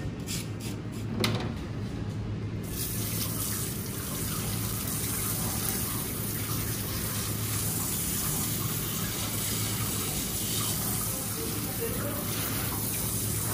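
A few short strokes of a plastic fish scaler scraping a whole salmon, then a tap turns on about two and a half seconds in. Water runs steadily over the fish into a stainless steel sink while a hand rubs off the loosened scales.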